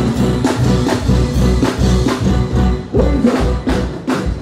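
Live band music played loud over a stage PA, with a steady drum and bass beat and an electric guitar.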